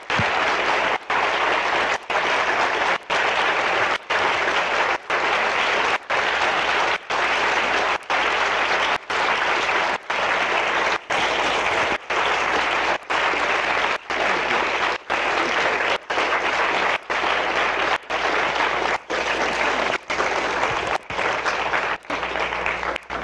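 Audience applauding steadily at the end of a poetry reading, broken by short regular gaps about once a second, and thinning out near the end.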